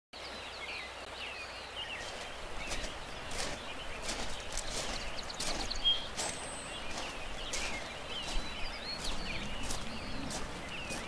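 Outdoor nature ambience: many small birds chirping and calling in quick, short notes over a steady background hiss.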